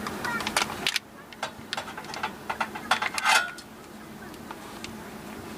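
Small clicks and clinks of a stirrer in a paper cup and of a camping kettle being handled, with a louder clatter about three seconds in, over a steady low hum.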